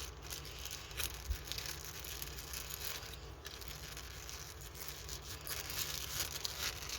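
Faint rustling and crinkling of plastic packaging as canvases are handled, with a few small clicks, a little louder near the end.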